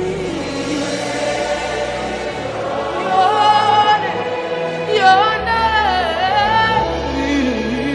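Live gospel worship music: a high voice sings long, wavering held notes over sustained backing chords and bass, dropping to a lower sung phrase near the end.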